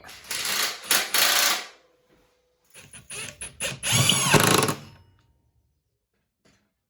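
Metabo HPT 36V brushless cordless impact wrench running in two bursts. The second burst is longer, and its motor pitch winds up and back down.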